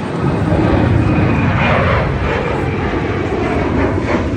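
Airliner engines running: a loud, steady rumbling roar that starts abruptly.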